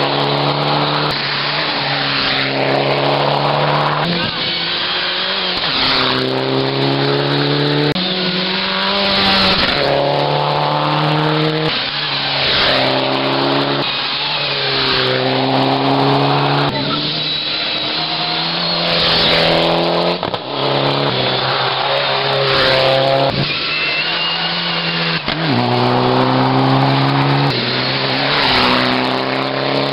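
Rally car engine working through a stage, its pitch climbing and then dropping again every couple of seconds as it accelerates, shifts and backs off, over a rushing noise.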